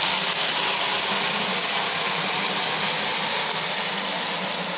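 Bing gauge 1 tinplate electric locomotive running fast on tinplate track at about 25 volts: a steady whirr of its motor, gears and wheels, slowly getting fainter toward the end.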